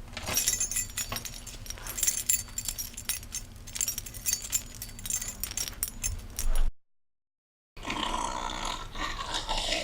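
Rapid metallic jangling and clinking for about six and a half seconds, then a sudden cut to about a second of dead silence, then a different, denser rustling sound.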